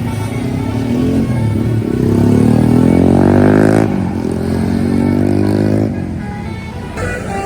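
A bus engine accelerating past, rising steadily in pitch for a couple of seconds, then breaking off briefly for a gear change about four seconds in before pulling on more evenly and fading.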